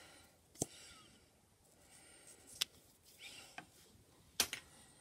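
Small cosmetic tubes clicking against a wooden tabletop as they are handled: three sharp clicks spread a second or two apart, with faint handling rustles between.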